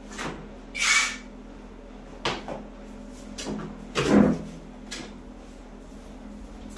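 A few short knocks and clicks of things being handled, with a brief rustle about a second in and the loudest knock about four seconds in.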